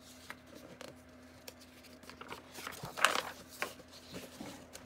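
A page of a picture book being turned by hand: paper rustling and sliding, loudest about three seconds in, with a few light clicks of handling around it.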